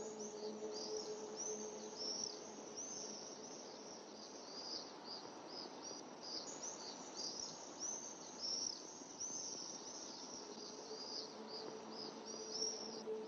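Many small birds chirping in quick, high, arching chirps over a steady soundtrack hiss. A soft musical drone fades out about a second in and returns near the end.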